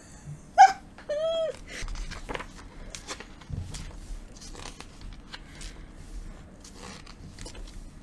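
Pages of a book being turned and rustled by hand in a string of short papery crackles. A cat gives a short high meow about a second in, just after a brief sharp call.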